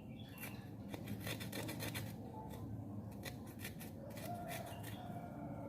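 Fresh ginger root being peeled: a run of short, irregular scrapes as the skin is taken off.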